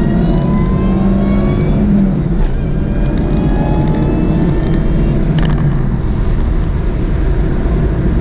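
Supercharged 2.0-litre four-cylinder engine of a Cobalt SS pulling hard under acceleration from about 3,500 rpm, its note and the supercharger whine climbing in pitch. The pitch drops back at gear changes about two seconds in and again around five and a half seconds in.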